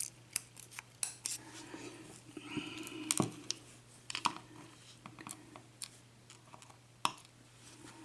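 Irregular small metallic clicks, taps and light scrapes as lock pins and tools are handled while pins are worked out of a disassembled Assa pin-tumbler cylinder lock. The two loudest clicks come a little after three seconds in and near the end.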